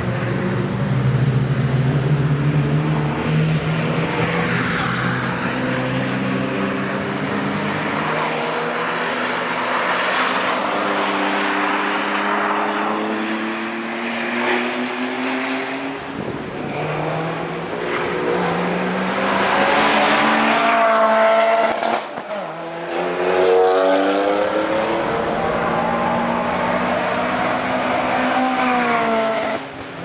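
BMW E39 5 Series Touring's engine being driven hard, its pitch climbing again and again as the car accelerates and shifts up.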